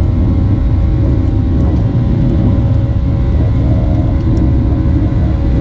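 Boeing 737-700's CFM56-7B jet engines running, heard from inside the cabin: a steady, loud rumble with a few faint held whining tones above it.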